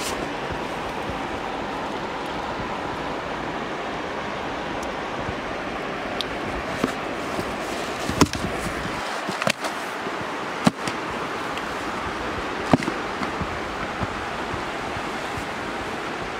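Steady rushing outdoor noise of wind and river water at a riverbank, broken by a few short sharp clicks between about eight and thirteen seconds in.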